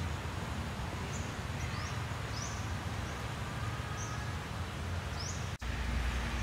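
Outdoor ambience: a steady low rumble under a few short, high chirps from small birds, each rising quickly in pitch, scattered about a second apart. The sound cuts out for an instant near the end.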